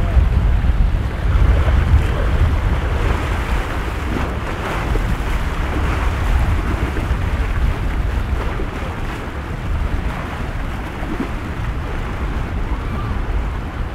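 Wind buffeting the microphone, a heavy gusting rumble over the steady wash of waves and surf in a rough ocean inlet.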